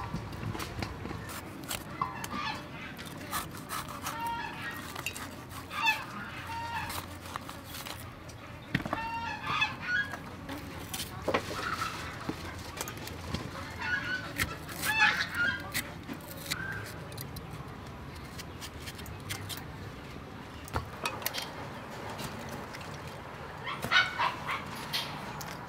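Domestic fowl calling now and then in short honks and clucks, with a few sharp knocks of a knife on a wooden cutting board.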